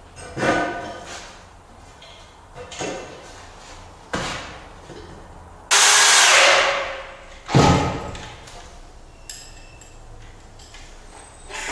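Irregular knocks and thuds from handling and fitting wooden floor joists and their anchor hardware, with a loud rushing noise about a second long, a little past the middle.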